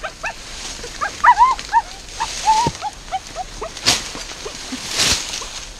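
Small beagle-type hunting dogs yipping and whining excitedly in quick short calls as they nose at the ground in the brush, with two brief rustles of dry grass about four and five seconds in.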